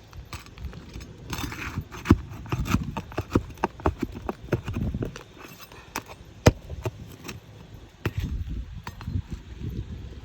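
Irregular sharp clicks and knocks of hand tools working on asphalt roof shingles, as a shingle is pried and worked loose. The two loudest strikes come about two seconds and six and a half seconds in.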